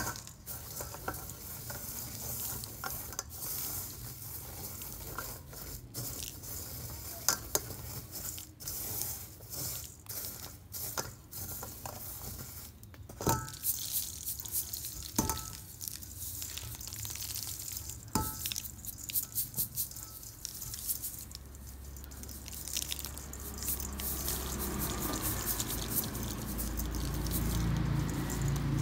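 Dry grains shaken through a perforated stainless-steel colander and pattering into a steel bowl: a steady hiss with a few sharp metal clicks, growing louder and fuller over the last several seconds.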